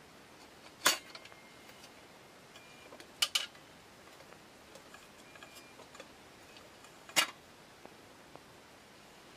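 Metal parts of a brass Optimus 1200M pressurized kerosene lantern clinking as it is handled and turned. There are sharp clinks about a second in, a quick double just after three seconds and another around seven seconds, some with a short metallic ring, plus a few faint ticks.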